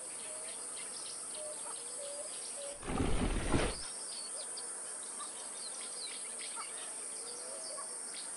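App ambient jungle soundscape: many short bird chirps and insect ticks over a steady hiss. One short, louder rush of noise comes about three seconds in.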